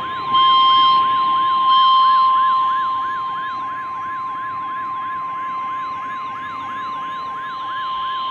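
Emergency alert tones: a steady single-pitch tone just above 1 kHz, typical of the NOAA Weather Radio 1050 Hz warning alarm tone, together with a siren-like tone sweeping up and down about three times a second. The alert is louder twice in the first two seconds.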